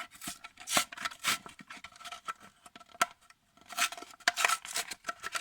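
A Matchbox die-cast car's blister pack being opened by hand: plastic and cardboard crinkling, scraping and clicking in irregular bursts.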